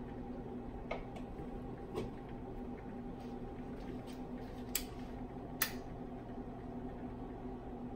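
Steady low room hum with a few light clicks and taps from gloved hands handling things at the bench; the two sharpest clicks come a little under a second apart around the middle.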